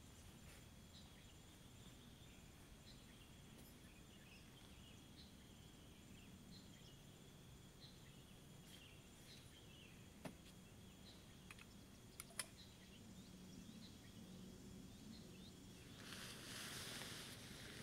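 Quiet pine-forest ambience: a steady faint insect drone with short bird chirps scattered through it. A few sharp clicks come about two-thirds of the way in, and a broad hiss swells near the end.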